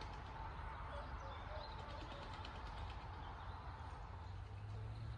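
Quiet outdoor ambience: a steady low rumble under a constant hiss, with a few faint, brief bird chirps.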